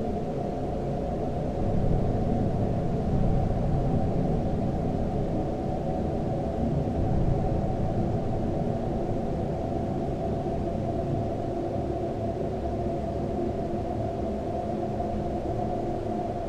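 Dark ambient soundscape: a steady low rumbling drone with several sustained tones layered above it, swelling slightly about two seconds in.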